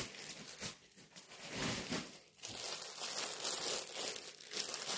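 Clear plastic garment bag crinkling as it is handled, in stretches broken by brief lulls.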